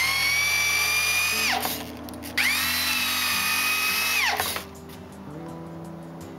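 Corded electric drill driving screws into a 2x4 post: two runs of about two seconds each, the motor whine rising as it spins up and dropping as it stops.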